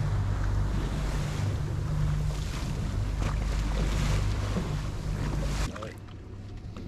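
A boat's motor running steadily under way, a low hum under the rush of water and wind buffeting the microphone. It cuts off abruptly about five and a half seconds in, leaving only a quieter wash of water.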